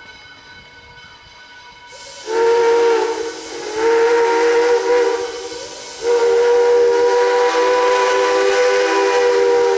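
Pennsylvania Railroad #643's steam whistle blowing a chord of several notes with a hiss of steam. It sounds two blasts of about a second each, a faint brief toot, then a long blast of nearly four seconds: the long–long–short–long signal for a grade crossing.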